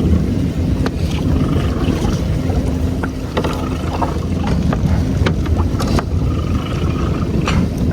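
Steady low rumble of a boat at sea, with wind buffeting the microphone and scattered short clicks and knocks.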